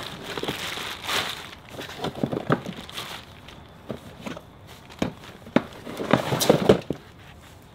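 Rustling and bumping of things being handled in a cardboard box of clothes: fabric and cardboard shifting, with irregular sharp clicks and knocks, the loudest a little past the middle.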